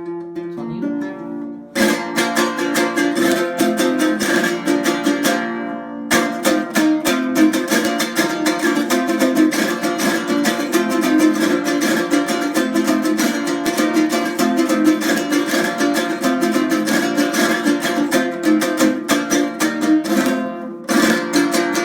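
Jarana tercera, a small eight-string guitar of Veracruz son jarocho with cedar body and top, strummed in a steady rhythm. A single chord rings out first, then quick strumming begins, breaking briefly about six seconds in and again just before the end.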